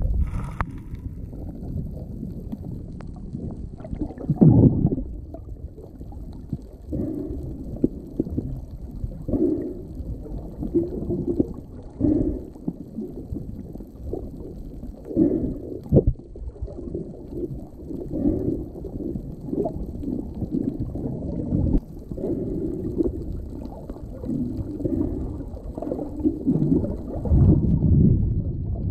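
Water noise picked up underwater: a muffled low rumble with irregular gurgling swells every second or two, stronger about four seconds in and near the end.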